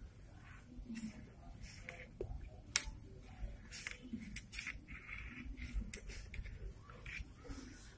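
Two young kittens play-fighting inside a bucket: scuffling and claws scratching against the bucket wall, with scattered sharp clicks, the loudest about three seconds in.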